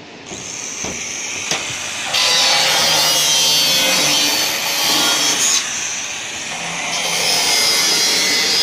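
Corded electric power saw cutting roof sheeting, a harsh continuous cutting noise that starts about two seconds in, eases off briefly near the two-thirds mark and then resumes.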